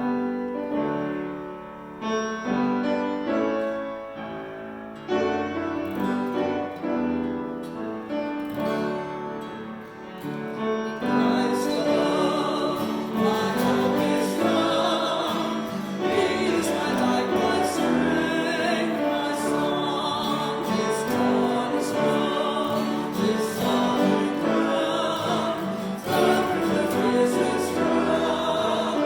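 Closing hymn music: a piano plays an introduction alone, then singing voices come in over the piano about eleven seconds in.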